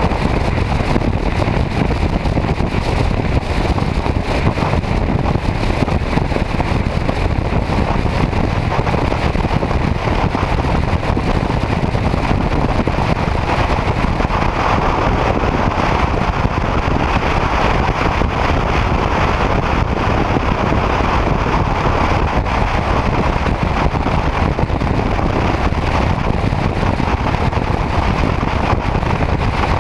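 Steady wind rush on the microphone with road and engine noise from a motorcycle cruising at highway speed, getting a little stronger about halfway through.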